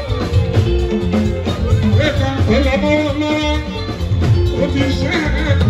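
Live band music played loud: electric guitar and bass guitar with drums, held melodic notes over a heavy, steady beat.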